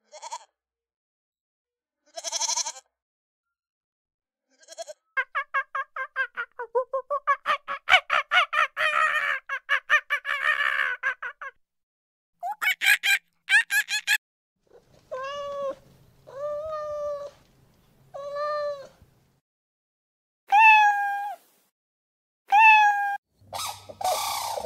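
A series of separate animal calls with silent gaps between them: short goat bleats at the start, then a long run of rapid pulsed calls, then several pitched calls of about a second each.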